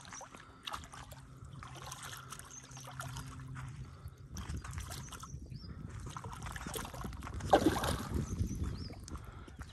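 A hooked carp thrashing at the surface in shallow water, splashing again and again, with the loudest splash about seven and a half seconds in.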